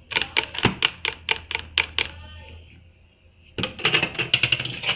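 Rapid sharp taps, about five a second for two seconds, then after a pause a second, quicker run: a hand-held mesh strainer being knocked against a plastic food container to shake out the last lime juice and pulp.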